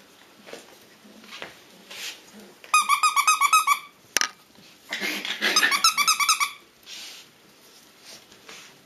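Six-week-old puppies play-fighting, with two quick runs of rapid high-pitched yelps, each about a second long, about three and six seconds in. Faint scuffling and scrabbling of paws on the tile floor between them.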